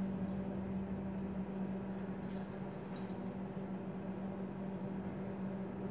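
Sawdust being sprinkled and spread by hand over a joint between two pieces of wood, giving faint scattered rustling and crackling, mostly in the first three seconds. A steady low hum runs underneath and is the loudest sound.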